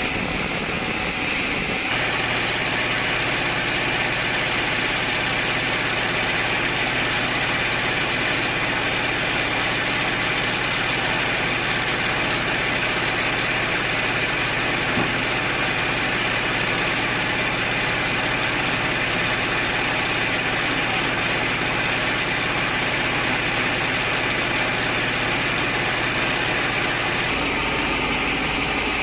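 Woodworking machinery running steadily, a constant motor hum with a high whine. The sound changes abruptly about two seconds in and again near the end.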